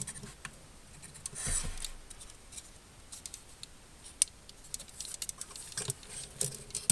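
Hard plastic model-kit parts clicking and tapping as the front skirt armor of a Master Grade Duel Gundam is pressed and fitted onto its pegs. The clicks are small and irregular, with a short rustle of handling about a second and a half in, and they come thicker in the second half.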